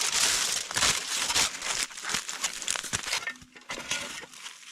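Lamb shank sizzling over a campfire, fat spitting and crackling in a dense run of pops, louder at first and dying down after about three seconds.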